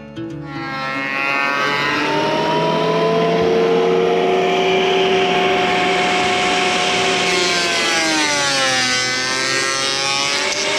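Chainsaw revving up to full speed and cutting wood. Its pitch sags about eight seconds in as the chain bogs under load in the cut, then climbs again.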